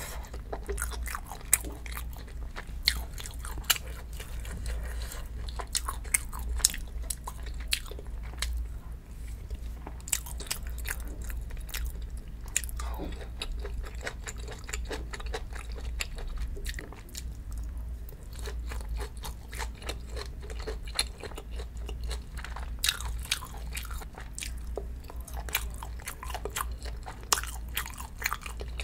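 Close-miked eating: wet chewing and biting with many sharp mouth clicks and occasional crunches, over a steady low hum.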